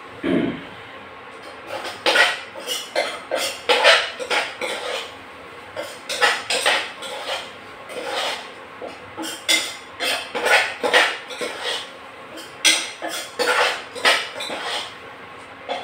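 A metal spoon scraping and clinking against a metal saucepan as a thick masala is stirred, in irregular runs of quick strokes.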